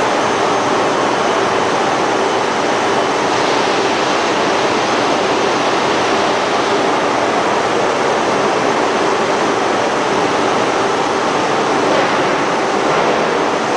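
Ring rolling mill running as it rolls a red-hot steel ring: a loud, steady rushing noise with a faint steady hum under it.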